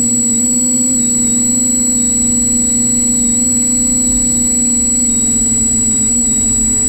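Multirotor drone's electric motors and propellers humming steadily in flight, the pitch dipping and shifting slightly a few times as the motors adjust, with a thin, constant high whine over it.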